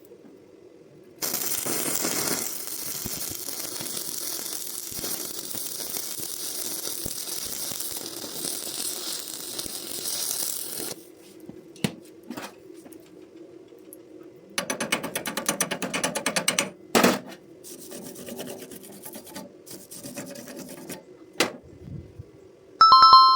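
Stick (arc) welding on rebar: the arc crackles and hisses steadily for about ten seconds, then stops. Later come a burst of rapid scraping strokes and a few sharp knocks, and just before the end a short electronic two-tone chime.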